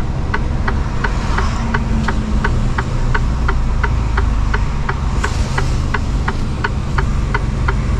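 Mercedes-Benz Actros truck's diesel engine running, heard from inside the cab, with a steady ticking about three times a second over it.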